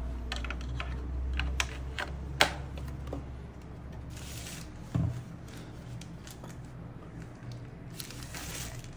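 Hands handling a white plastic TP-Link CPE220 outdoor unit: a run of sharp plastic clicks and taps in the first couple of seconds, a rustle, then a low thud about five seconds in as it is set down on the table. Near the end, a soft rustle of the white foam wrapping sheet.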